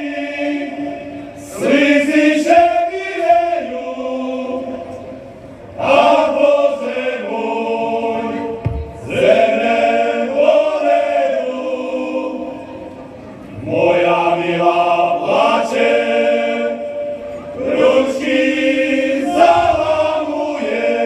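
Folk ensemble singing together, a Slovak folk song in slow phrases with long held notes; each new phrase comes in louder every few seconds.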